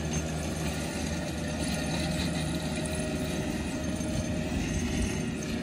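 A steady low mechanical hum of an engine or motor running, unchanging throughout.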